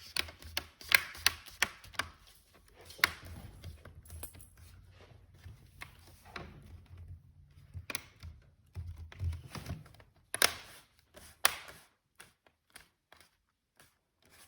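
Plastic clicks and snaps of a laptop screen bezel being pressed back into place around its edges, irregular and in clusters, with faint handling rubs in between.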